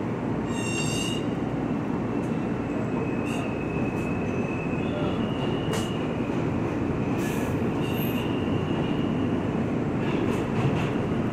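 R160 subway train pulling out of a station and getting under way: steady running rumble with thin high whining tones from the wheels and drive, and a short high chime about half a second in.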